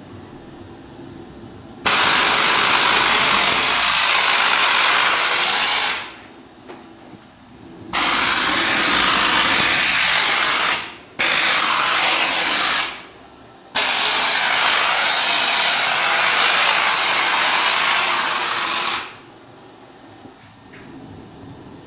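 TORNADOR Z-011 compressed-air foam gun spraying in four long bursts of loud hiss, each starting and stopping sharply, with short pauses between them.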